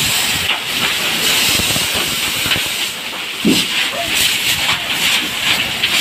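Firefighting hose nozzle spraying a jet of water onto burning debris: a loud, steady hiss of spray and steam, with a brief low thump about halfway through.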